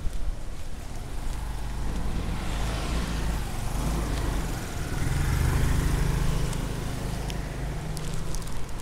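A motor vehicle drives past on the street, its low engine rumble and road noise swelling to a peak about five to six seconds in, then fading.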